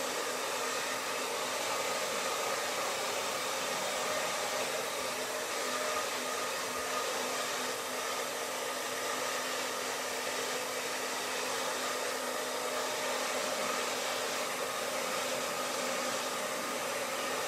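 Handheld hair dryer running steadily: a constant rush of air with a faint, even motor hum beneath it.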